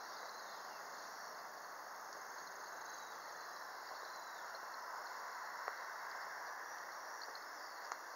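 Steady chirring of autumn crickets and other insects in the grass, with a couple of faint clicks in the second half.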